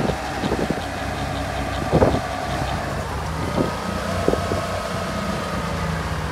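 Jeep Liberty engine running steadily under load while its wheels spin in snow during a burnout, with a short thump about two seconds in.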